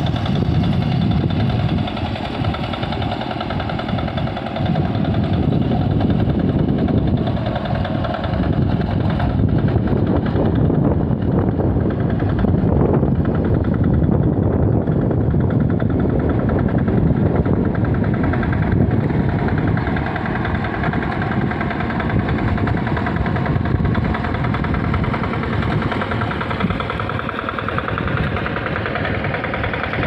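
Two-wheel hand tractor engine running steadily with a fast, even chugging while it ploughs a flooded rice paddy.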